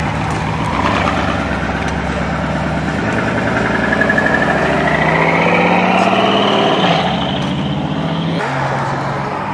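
Mercedes-AMG E63 S with a 5.5-litre twin-turbo V8 and straight-pipe exhaust, accelerating away hard. The engine note rises along with a climbing turbo whistle, then drops at a gear change about seven seconds in.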